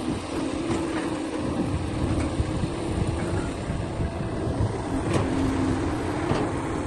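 Heavy machine's diesel engine running steadily with a steady hum, and a few sharp knocks about a second in and again near the end.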